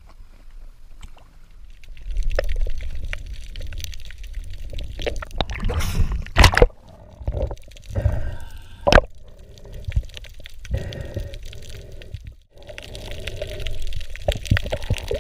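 Seawater sloshing and gurgling around a spearfisher's camera at the surface and underwater, with several sharp knocks, the loudest a little past six seconds and at nine seconds.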